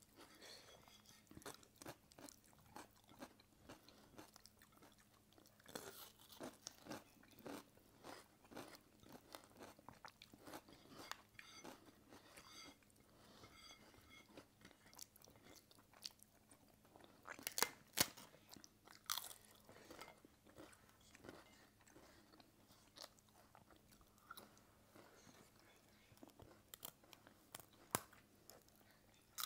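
Quiet eating sounds of two people eating by hand: chewing and occasional crunching, heard as many small scattered clicks, a few louder ones about 17 to 19 seconds in.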